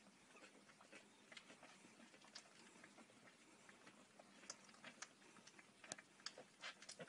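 Faint, irregular wet clicks and smacks of week-old puppies suckling at their mother's teats, coming more often and more strongly in the second half.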